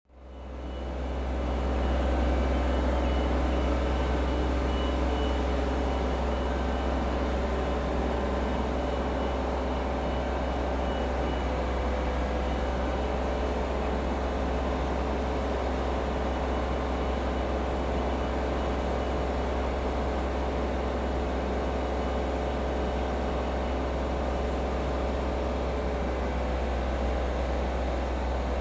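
Irish Rail 22000 class diesel multiple unit approaching slowly: a steady low rumble with a drone of engine tones. The sound fades in over the first two seconds.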